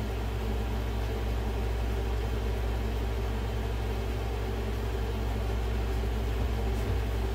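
Steady low mechanical hum with an even faint hiss over it, unchanging throughout.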